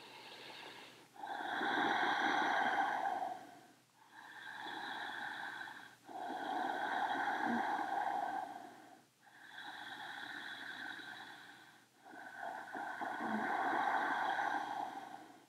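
A person breathing slowly and deeply through a held yoga stretch: about three full breaths, each a louder breath of about two seconds followed by a quieter one, with short pauses between.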